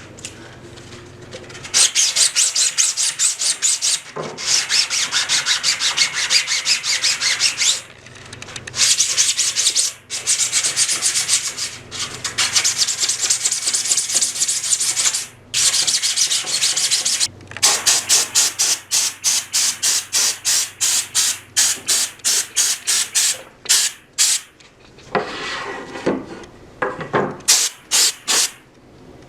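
Sandpaper being rubbed by hand over a 3D-printed plastic sword blade patched with Bondo body filler. It goes in quick back-and-forth strokes in spells with short pauses, settling into an even rhythm of about three strokes a second in the second half.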